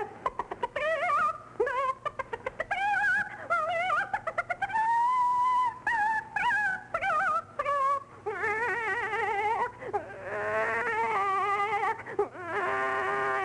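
A woman's voice imitating a hen while singing an operatic aria. Quick, choppy clucks in the first few seconds give way to long, warbling held notes with a wide wobble, and a long held note starts near the end.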